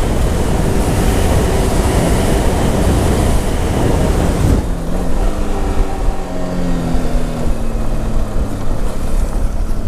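Off-road vehicle's engine running under way, buried in heavy rumbling wind or road noise for the first half. A little under halfway through the noise drops away and the engine is heard clearly, its pitch rising and falling with the throttle.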